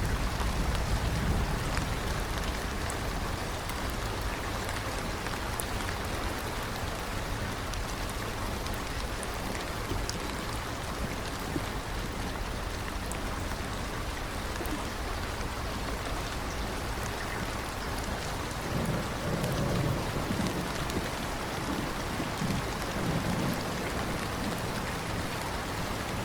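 Steady rain falling, with a low rolling rumble of thunder that swells about two-thirds of the way through.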